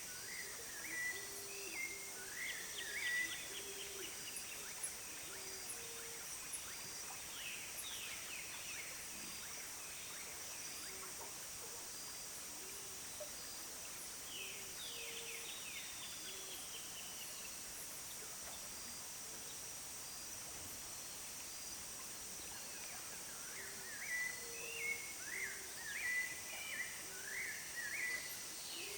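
Wild birds calling in bursts, with quick falling whistles and chirps, over a steady high-pitched insect drone. Short low notes repeat throughout.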